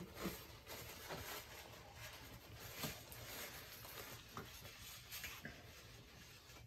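Soft rustling and crinkling of a paper napkin as hands are wiped with it.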